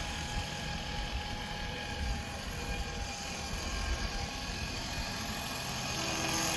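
Electric drivetrain of an RC crawler truck whining steadily as it drives in first gear: a brushed 38-turn 560 motor turning a two-speed transmission through a 17-tooth pinion, with a low rumble underneath.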